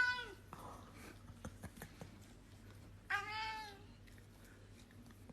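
Domestic cat meowing twice: the end of one meow right at the start, then a second, shorter meow about three seconds in.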